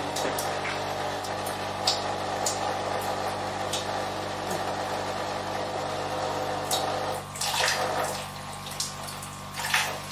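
Thin stream of water pattering into a bathroom sink, over a steady low hum from the vibrating subwoofer rig. About seven seconds in, a hand is put into the falling water and the steady patter breaks into irregular splashes.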